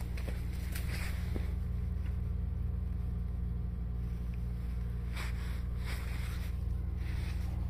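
A steady low hum, with a few faint rustles over it.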